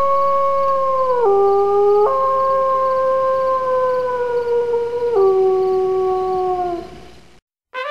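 Common loon wail: one long, clear call held on a note, stepping abruptly down to a lower note about a second in, back up about two seconds in, and down again about five seconds in, then fading away.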